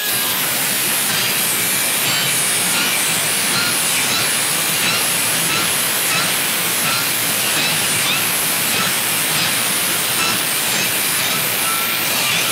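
Cordless circular saw with a Crescent NailSlicer carbide-tipped blade running steadily as it cuts through a board studded with nails.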